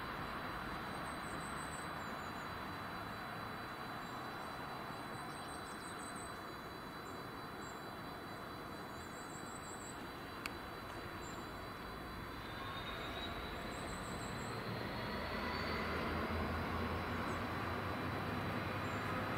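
GBRF Class 66 diesel locomotive 66767, with its two-stroke EMD V12 engine, drawing closer with a train of box wagons. Its engine and wheel noise grow louder through the second half, with a rising whine and a low engine beat that strengthen near the end.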